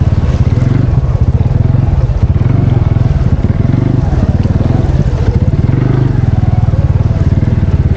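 CF Moto 500 ATV's single-cylinder engine running close by under way, its rapid firing pulses giving a low rumble, with the engine speed rising and falling a couple of times.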